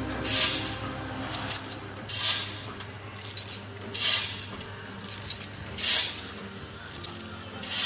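Automatic vertical form-fill-seal packing machine running through its bag cycle, a burst of hissing rustle about every two seconds with light clinks and a low hum between.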